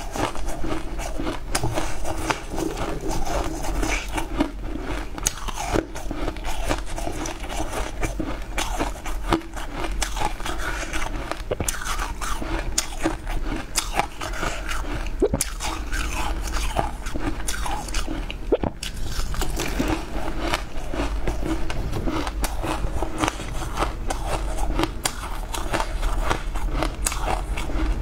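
Close-miked biting and crunching of chunks of blue-dyed ice, with chewing, sharp cracks and crackles coming irregularly and densely throughout.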